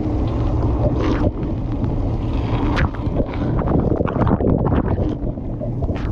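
Dishwasher running, heard from inside the tub: water jets spraying and splashing irregularly against the camera over a steady low rumble.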